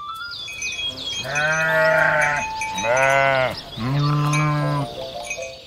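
A cow mooing three times in long, low calls, each rising and falling, with birds chirping in the background.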